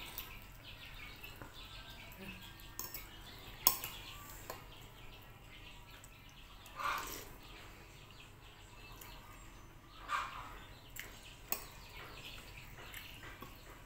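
Metal spoon and fork clinking and scraping on a plate of chicken soto, with a few sharp clinks; the loudest comes nearly four seconds in.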